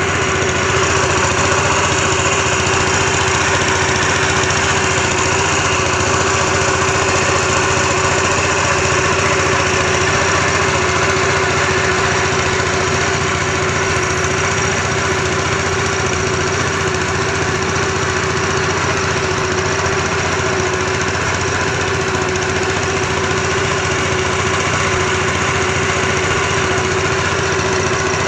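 Small engine running steadily at a constant speed, with an unchanging drone.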